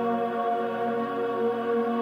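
Background ambient music: soft, sustained synthesizer-like tones held steady, with no beat.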